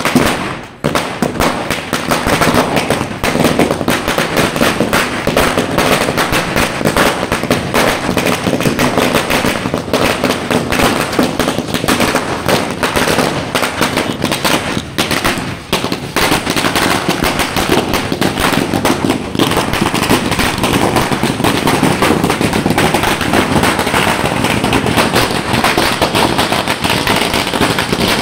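A long string of firecrackers going off, a rapid, unbroken rattle of sharp bangs.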